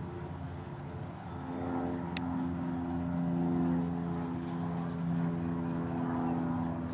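Steady low mechanical hum with several held tones, like a running motor, filling out about two seconds in. A single sharp click comes at about the same point.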